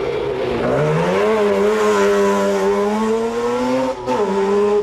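Rotary-engined four-wheel-drive Mazda rally car at full throttle: the engine revs rise about a second in and hold high, with a brief lift near the end before it pulls again.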